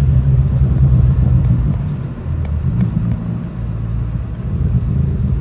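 Car engine and road noise heard inside a moving car's cabin: a steady low drone that eases off about two seconds in.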